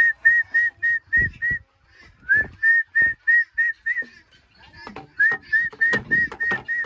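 A person whistling short, high notes at one pitch, repeated about four a second in three quick runs, each note sliding up into the tone. A few low knocks sound underneath.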